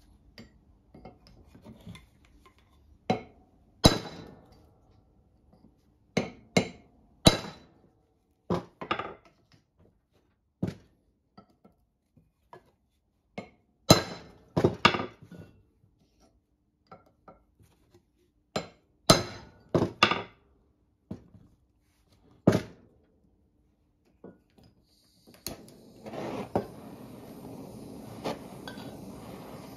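Hammer striking a chisel against the pressed-on bearing locking ring of an axle shaft: sharp metallic blows, singly and in quick runs of two or three, to split and loosen the ring so the bearing can come off. Near the end a handheld gas-canister torch is lit and hisses steadily as it heats the ring.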